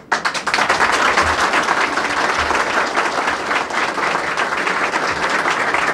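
A crowd applauding, many people clapping hands; the clapping starts abruptly and holds steady.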